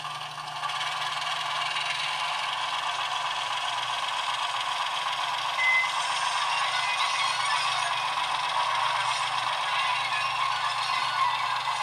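Model Kö II shunting locomotive running under a LokSound 4.0 sound decoder: the small diesel's running sound comes steadily from the model's tiny speaker, thin with no bass, along with the mechanical rattle of the model on the track. A brief high squeak about six seconds in.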